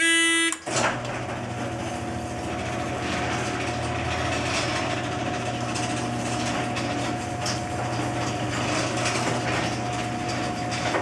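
A buzzer sounds for about half a second, the Raspberry Pi's warning that the garage door is about to move. Then the garage door opener motor runs steadily with a hum and rattle as the door goes up.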